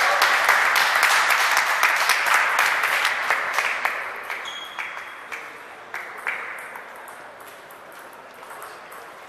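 Applause dying away over the first few seconds, with the sharp clicks of table tennis balls hitting paddles and tables throughout.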